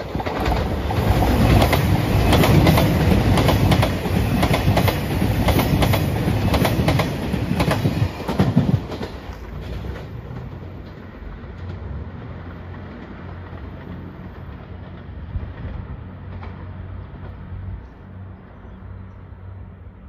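JR Shikoku 2700 series diesel limited-express train passing close by at speed, its wheels clacking rapidly over the rail joints for about nine seconds. It then fades as it draws away, leaving a faint low hum.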